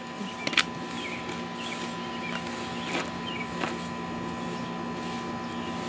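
Broom bristles scraping over the pavement in irregular strokes, brushing dry mortar onto a fresh patch of cold-patch blacktop, with a few sharp clicks of grit.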